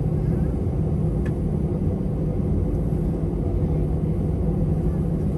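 Steady low rumble of an Airbus A319 airliner's engines and airflow, heard from inside the passenger cabin, with a faint click about a second in.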